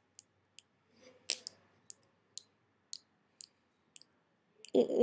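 Lips smacking in a pursed fish-face pout: a string of about nine short kissing pops, roughly two a second, one louder than the rest about a second in. A voice starts just before the end.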